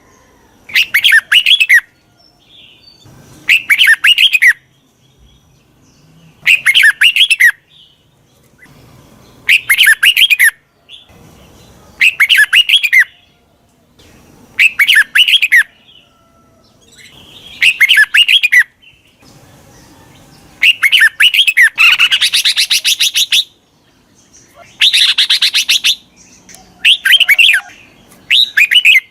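Red-whiskered bulbul song: short, loud, bubbling whistled phrases about a second long, repeated every two to three seconds with quiet gaps. The phrases just after 20 s and around 25 s run longer and fuller. It is a bulbul call used as a lure to bring wild bulbuls in.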